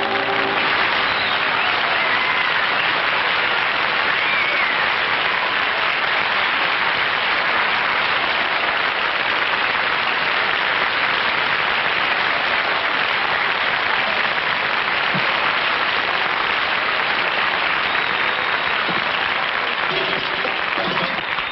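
Studio audience applauding steadily for about twenty seconds, dying down near the end: entrance applause greeting a guest star.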